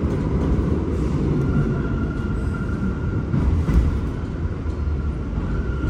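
New York City subway 1 train in motion, heard from inside the car: a steady low rumble of wheels on track with scattered knocks, and a faint steady high whine from about a second and a half in.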